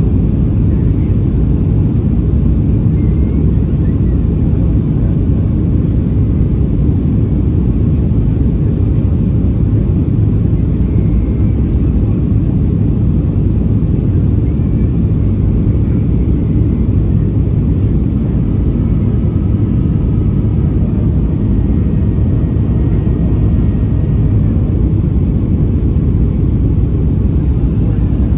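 Steady low cabin roar of a Boeing 737 in flight, its jet engines and rushing airflow heard from a window seat over the wing. The airliner is on approach with its flaps extended.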